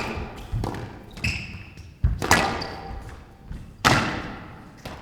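Squash rally: sharp smacks of racket on ball and ball on the walls, about every one and a half seconds, each ringing out in the court, with a brief high squeak a little over a second in.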